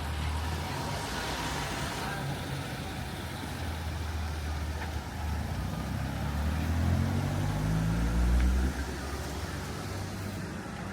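Motor vehicle engine running close by. Its pitch rises as it speeds up, loudest about eight seconds in, then the sound drops off suddenly.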